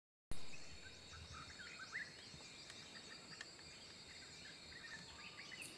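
Faint tropical rainforest ambience: a steady high-pitched insect drone with many short bird chirps and calls repeating throughout.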